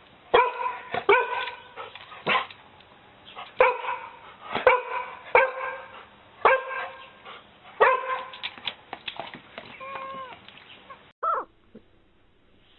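Dog barking in short, sharp yaps, about a dozen in irregular clusters. Near the end the sound cuts off and a brief sliding high call follows.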